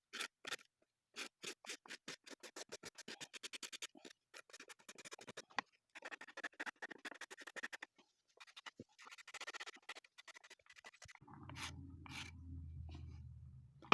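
Wood rasp scraping across the wooden stick knob in quick push strokes, several a second, in runs with short pauses, taking the corners down. A low steady hum comes in near the end.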